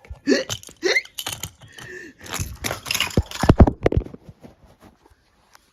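A cartoon character hiccups twice, short rising 'hic' sounds. Then comes a jumble of clattering knocks and rustling sound effects with a few deep thumps, which dies away about four seconds in.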